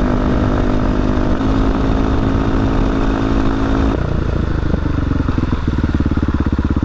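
KTM 500 EXC-F supermoto's single-cylinder four-stroke engine running at a steady speed, then dropping back to an evenly pulsing idle about five and a half seconds in.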